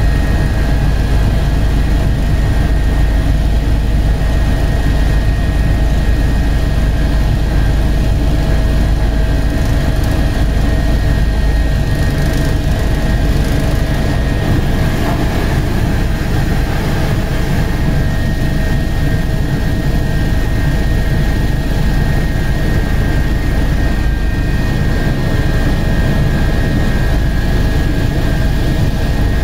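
Helicopter in flight, heard from inside the cabin: a loud, steady low rumble of rotor and engine, with a constant whine over it.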